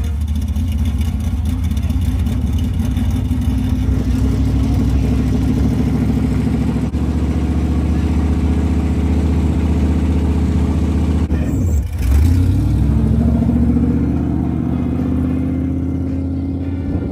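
Dirt-track modified race car engine running at a steady, loud rumble. About twelve seconds in, the revs drop briefly and then climb steadily as the car pulls away.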